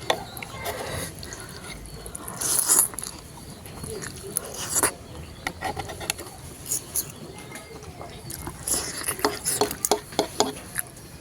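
A person eating spicy noodles close to the microphone: wet chewing and slurping with many small mouth clicks. The louder slurps come about two and a half seconds in and near the five-second mark, and a quick run of clicks comes near the end.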